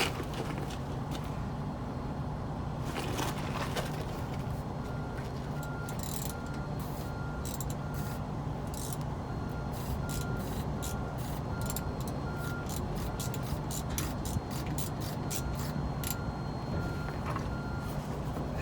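Ratchet clicking in short runs as a truck's brake adjuster is turned, over a steady low hum. A short high beep repeats about every 0.7 seconds through the middle.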